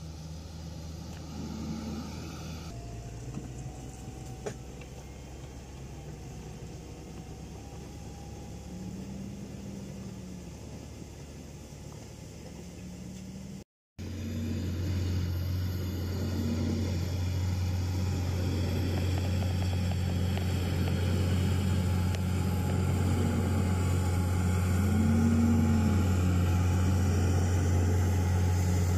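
Fendt 930 tractor's six-cylinder diesel engine running steadily under load as it pulls a four-furrow plough through stubble. After a brief break about halfway through, it is louder and keeps growing louder as the tractor draws near.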